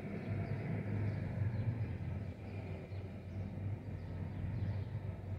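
Low, steady outdoor rumble of a city at night, swelling slightly in the first couple of seconds and then easing.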